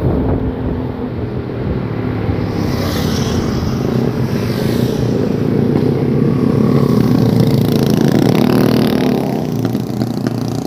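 Motorcycle engine running steadily while riding through traffic, with wind rushing over the microphone.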